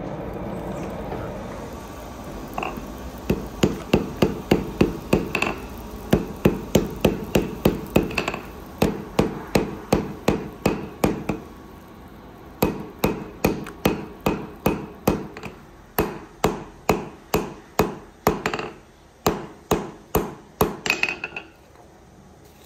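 Hand hammer striking red-hot steel wire rope on an anvil, about three blows a second in runs with short pauses, starting a few seconds in: the cable is being forged into a knife.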